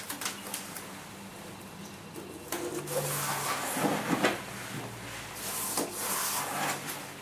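Masking tape pulled off the roll and stuck down, with rustling and small handling knocks; the loudest, longest tearing stretch comes about two and a half seconds in, and a shorter one follows near the end.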